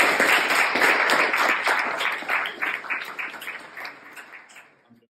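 Audience applauding, many hands clapping at once, fading out over the last two seconds.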